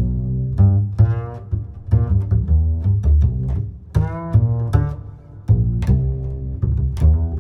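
Background music with a strong bass line and a melody of short, sharply started pitched notes.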